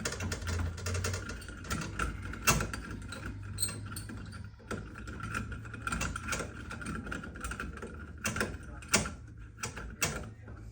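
Irregular clicks and taps of hand tools at work on plumbing fittings, with a sharper knock about 2.5 s in and another about 9 s in, over a steady low hum.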